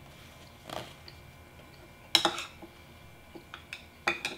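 Utensil clinking against a ceramic bowl and plate: one sharp clink about two seconds in, then a quick run of clinks near the end.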